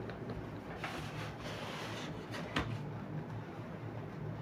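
A cardboard tablet box's lid is slid up and off its base: a soft papery scrape lasting about a second and a half, then a single light knock of cardboard.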